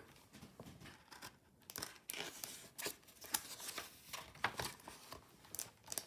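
A page of a hardcover picture book being turned: paper rustling and crinkling with scattered small clicks of handling, busier from about a second and a half in.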